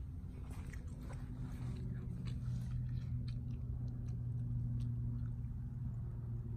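A steady low hum with scattered faint clicks and rustles.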